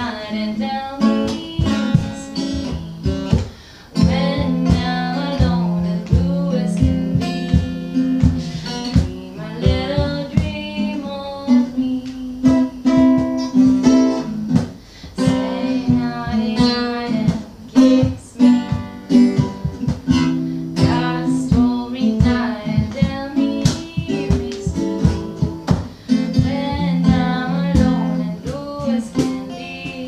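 Acoustic guitar being strummed in a steady rhythm of chords, with a voice singing along.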